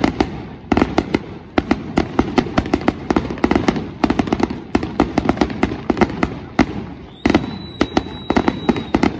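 Fireworks display: rapid bangs and pops from many shells bursting, coming in clusters about once a second. A steady high whistle runs through the last two seconds or so.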